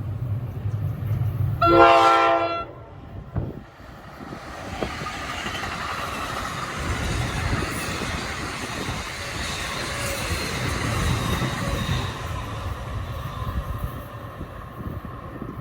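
Train horn sounding one short blast about two seconds in over a low engine rumble, then a passing train's steady wheel-on-rail noise builds and runs on.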